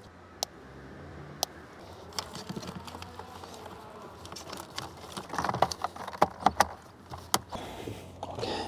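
Wiring harnesses and plastic connectors rustling and clicking as they are handled and tucked into the dashboard cavity behind the car radio. Sharp clicks come every second or so, with a busier stretch of rustling and clicks about five to seven seconds in.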